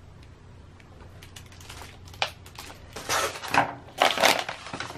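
Plastic sleeves and paper packaging crinkling and rustling as sticker kits are handled and lifted out of a box. The first two seconds are quiet, then a run of uneven rustles and small clicks follows.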